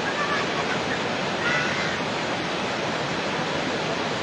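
Fast, brown floodwater from a breached river embankment rushing over the ground in a steady, heavy roar. Two brief high calls sound over it, about half a second and a second and a half in.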